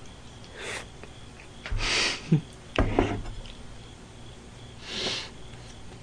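A man with a mouthful of food sniffing and snorting sharply through his nose in short bursts: a faint one, two loud ones about a second apart in the middle, and a last one near the end.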